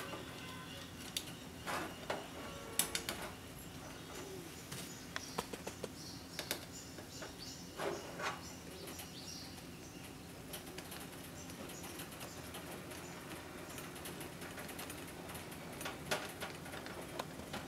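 Light clicks, taps and short scrapes of a screwdriver driving small screws into a heater's metal switch strip, and of hands handling the strip and its wiring, over a faint steady hum.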